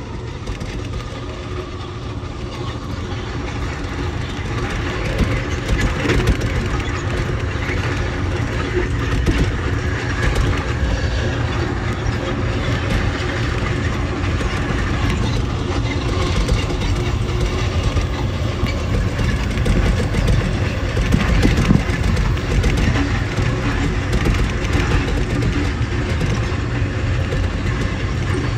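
Amtrak Southwest Chief passenger train running at high speed on welded main line, heard from aboard: a steady rumble of wheels on rail that grows a little louder over the first few seconds.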